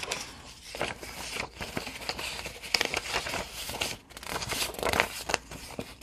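Prop-money paper bills rustling and snapping as they are counted by hand, a run of short crisp crackles.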